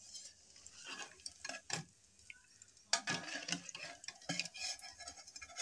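Perforated metal ladle scraping and clinking in a metal kadhai as dry coconut slices and raisins are stirred in hot oil, with a faint sizzle of frying.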